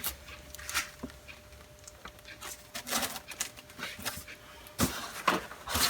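Intermittent light rustling and a few clicks from handling paper and packaging, with one sharper click or knock near the end.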